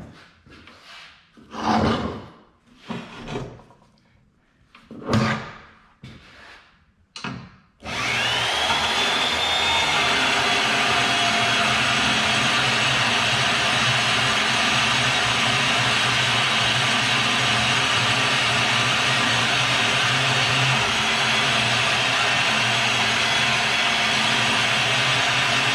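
A few separate metal knocks and clunks, then about eight seconds in an electric motor starts, its whine rising as it spins up, and runs steadily.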